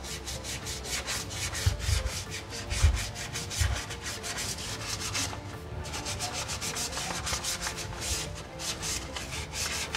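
Sandpaper rubbed back and forth over a drum brake shoe's lining in rapid, rhythmic scraping strokes, scuffing the lining flat so that it does not wear groove lines into the drum. A few dull knocks come between about two and four seconds in.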